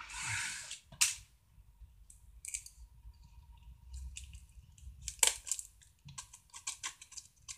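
Packaging of a DVD box set being handled and pulled open by hand: a short rustle, a sharp click about a second in, then scattered faint crackles and clicks, with a louder click about five seconds in.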